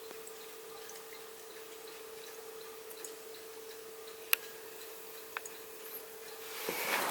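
Crane ultrasonic cool-mist humidifier running with a steady hum, with faint regular ticking and a few drip-like clicks from its water. Near the end the hum stops and a louder rushing noise takes over.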